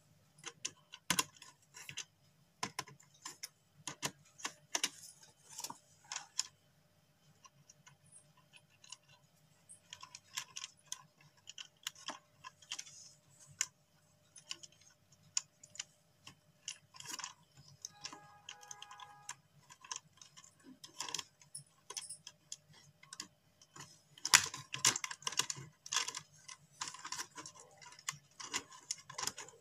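Irregular small clicks and scrapes of a screwdriver turning terminal screws and pressing wire into plastic switch fittings, busiest near the end. A brief pitched tone sounds about two-thirds of the way in.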